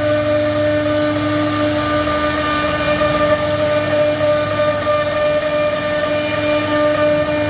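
CNC router spindle running with a steady whine over an even hiss, routing a membrane door design.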